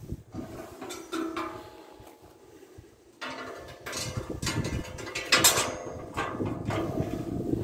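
Steel grate on a homemade welded steel barbecue grill being swung on its hinges and knocked against the steel firebox: metal clanking and scraping with a ringing tone, loudest about five seconds in.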